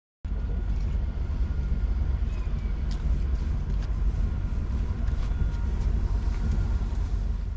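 Steady low rumble aboard a small fishing boat moored at a harbour quay, with a few light clicks and knocks. It starts abruptly just after the beginning.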